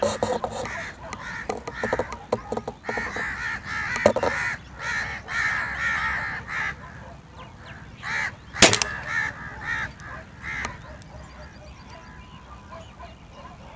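A spring-piston air rifle fires a single pellet with one sharp report about eight and a half seconds in, the loudest sound here. Birds call over and over through the first half.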